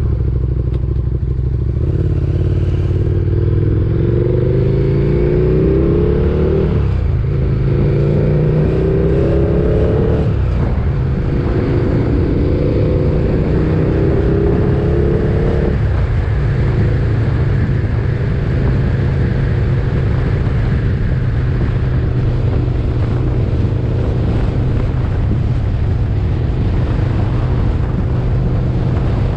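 KTM 1290 Super Duke GT's V-twin engine pulling up through the gears. The engine note climbs, drops at a gear change about seven seconds in, climbs again, drops at another change around ten seconds, and climbs once more. It then eases off into a steady cruise from about sixteen seconds.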